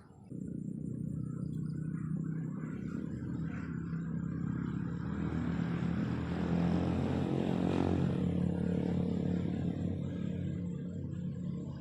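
A motor engine running, starting suddenly and growing louder to a peak about eight seconds in, then easing off.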